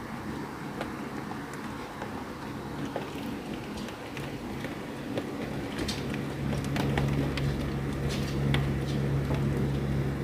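Rain falling, with scattered drops ticking on hard surfaces. About six seconds in, a steady low rumble comes in and the sound grows louder.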